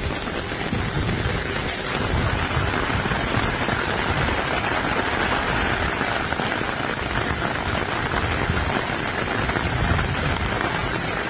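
Heavy rain falling on a paved street, a dense steady hiss.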